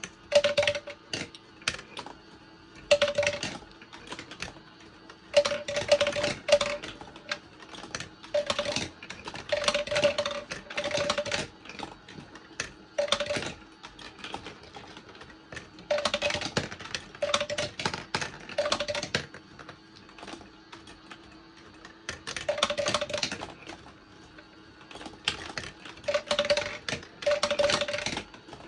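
Glass marbles rolling and clattering along a block-built marble run, in bursts of rapid clicking a second or two long with short pauses between. Some stretches carry a steady ringing hum from the rolling.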